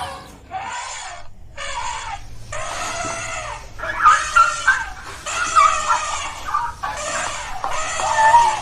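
A run of about eight short pitched animal calls, one after another with brief gaps.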